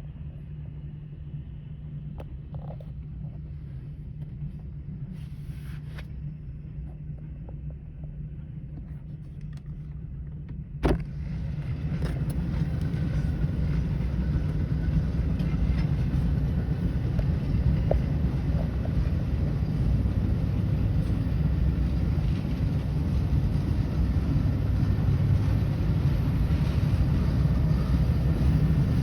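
Metra commuter train, one train towing a broken-down one, rumbling low and steady and growing louder as it comes closer. A single sharp knock comes about a third of the way in.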